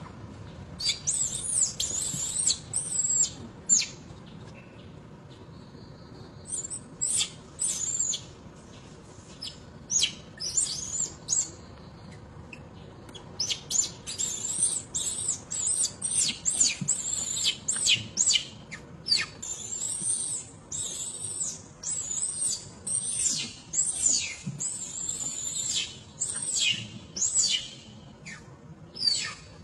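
Infant macaque crying: repeated short, high-pitched squeals in bouts, with a few seconds' pause twice. These are distress cries of a baby separated from its mother.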